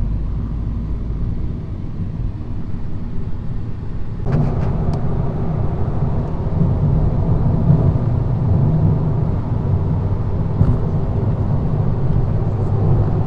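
Car engine and road noise heard from inside a moving car, a steady low rumble that gets louder about four seconds in.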